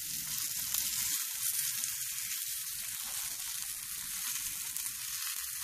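Flour-coated whiting fillets sizzling steadily in olive oil in a nonstick frying pan, with faint crackles.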